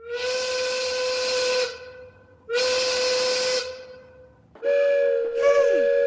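Steam locomotive whistle blown twice, one steady note over heavy steam hiss: a blast of about a second and a half, then a shorter one. About four and a half seconds in, a different whistle starts, two close notes sounding together, with a brief falling tone.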